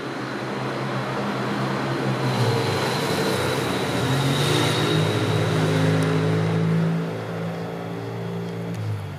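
A motor vehicle's engine passing close by: it swells over the first two seconds, holds a steady engine hum, then drops away about seven seconds in and fades near the end.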